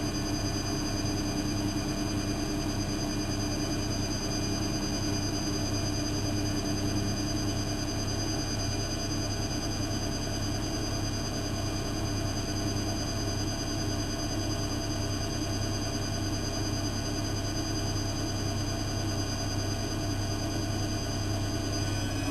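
Lloyds 825 washing machine's drum motor running continuously at a constant speed: a steady high-pitched whine over a low hum.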